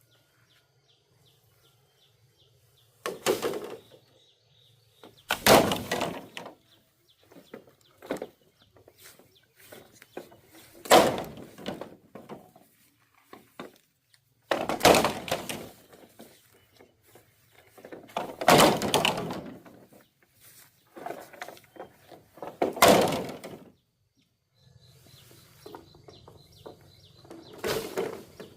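Heavy thunks and cracks of bamboo being struck and broken: seven loud strokes a few seconds apart, with lighter knocks between them. Birds chirp faintly in the background.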